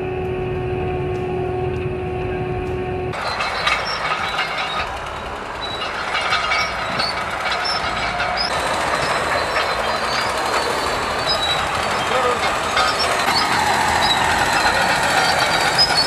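A forestry mulcher running with a steady hum for about three seconds. Then heavy crawler bulldozers clearing land: engines running under many metallic clanks and short high squeals from the tracks.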